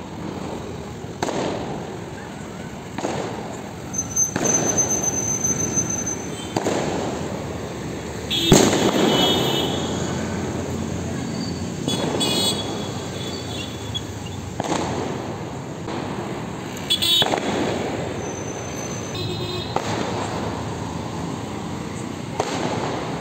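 Fireworks going off, about ten bangs a couple of seconds apart, each trailing off in an echo. The sharpest and loudest bang comes about eight and a half seconds in.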